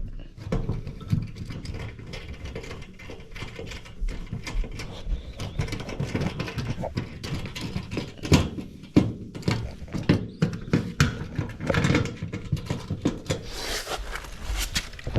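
Irregular clicks, knocks and clatter of tools and metal parts being handled during furnace maintenance, with a denser rustling scrape near the end.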